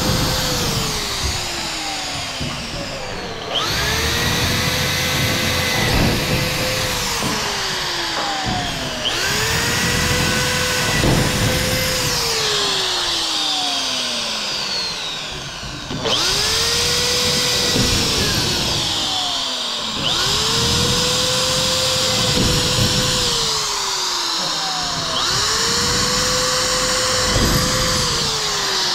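Ingco electric drill run in about six bursts, every four to five seconds. Each burst speeds up to a steady whine, holds for a couple of seconds, then winds down in a falling whine as the trigger is released, while the drill bores into fiber cement board over a steel-tube frame.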